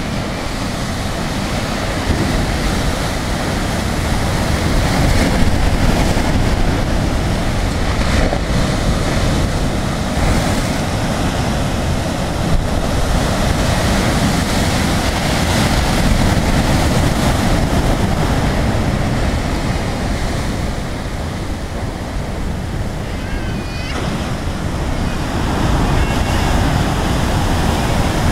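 Ocean surf breaking over shoreline rocks and washing back, a continuous rushing of water that swells and eases, with wind buffeting the microphone.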